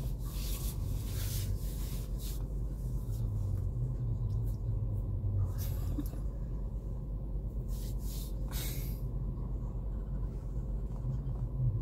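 Steady low drone inside a moving car's cabin, from the engine and road, with a few short hisses about a second in, near the middle and about two-thirds through.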